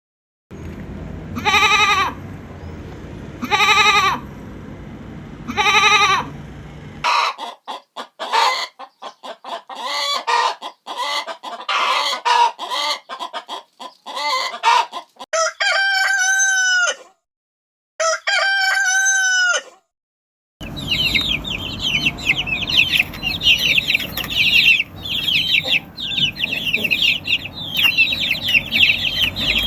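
Chicken sounds in a row: three short pitched calls over a low hum, then hens clucking rapidly, then a rooster crowing twice, then a dense high peeping of chicks.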